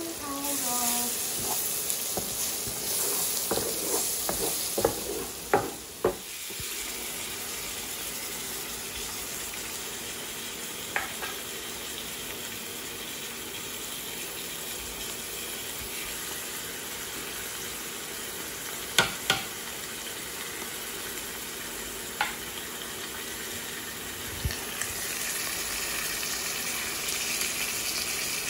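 Onions and ground spices sizzling in hot oil in a non-stick wok, with a quick run of clatters from a utensil against the pan in the first few seconds and a few single sharp clicks later. The sizzle gets louder and hissier near the end, after canned sardines in tomato sauce have gone into the pan.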